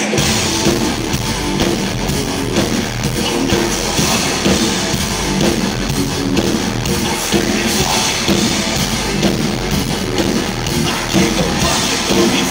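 Live rock band playing loud, with electric guitar and drum kit, heard from the audience.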